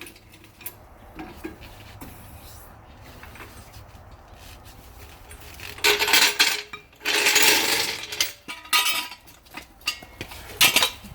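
Duralast floor jack being let down and handled: faint metal clinks, then two louder clanking, scraping bursts of about a second each, around six and seven seconds in, and a short clank near the end.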